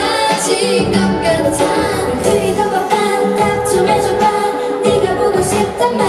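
K-pop girl-group song: female voices singing into microphones over a pop backing track with a steady beat.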